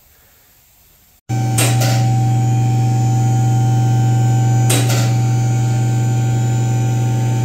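Faint background for about a second, then an abrupt start of a loud, steady, low-pitched electrical-sounding hum with a few brief clicks about three seconds apart.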